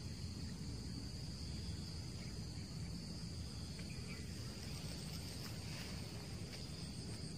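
Steady, high-pitched chirring of insects over a low rumble.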